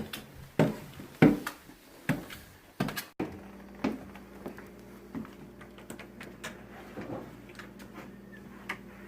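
Four sharp knocks and thumps in the first three seconds, then an abrupt cut to a quieter room with a steady low hum and a few fainter knocks.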